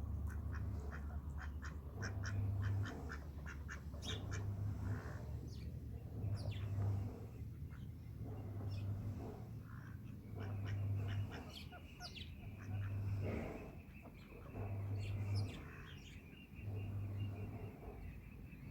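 Ducks quacking softly, with small birds chirping in short high notes. Under them a low hum swells about every two seconds.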